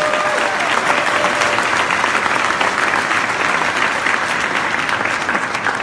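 Audience applauding at the close of a speech, a dense, steady clapping.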